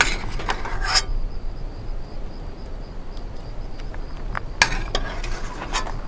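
A metal spoon clinking and scraping in a pan as pan sauce is spooned out and over a plate, with a few clustered clinks near the start, about a second in, and again toward the end.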